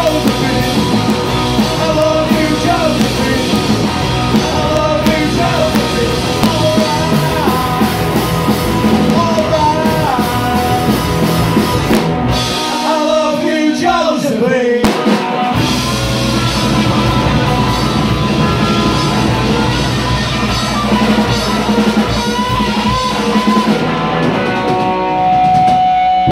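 Live punk rock band playing: electric guitar, bass guitar, drum kit and sung vocals. About halfway through, the bass and drums drop out for about three seconds while a guitar line glides in pitch, then the full band comes back in; near the end a long note is held.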